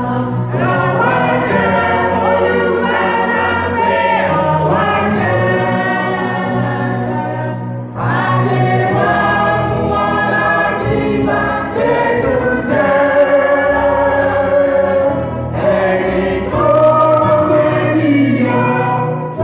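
A mixed church choir singing a gospel hymn together, in long held phrases with short breaks between them.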